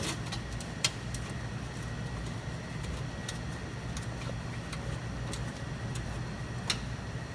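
Steady low hum of a workshop, with a few sharp clicks: a clear one about a second in and another near the end.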